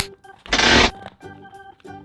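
Light background music with organ-like keyboard notes. About half a second in comes a short, loud rush of noise lasting under half a second, the loudest thing heard.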